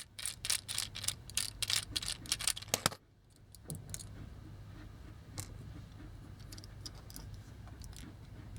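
A quick run of small clicks and rattles as hard toy parts are handled and worked on, lasting about three seconds, then only a few scattered clicks.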